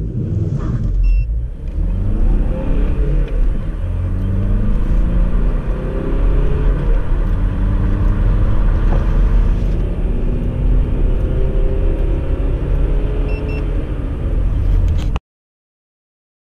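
VW Sharan 2.0 TDI four-cylinder turbodiesel in standard tune accelerating at full throttle, heard from inside the cabin: the engine note climbs steadily, drops back at each upshift, and climbs again. It cuts off suddenly about 15 seconds in.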